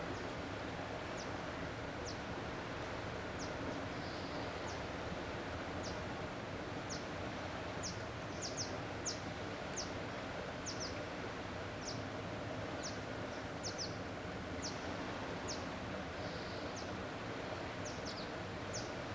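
A small bird repeatedly giving short, high, thin chirps that slide down in pitch, about once or twice a second and sometimes in quick pairs, over a steady hiss of shoreline background noise.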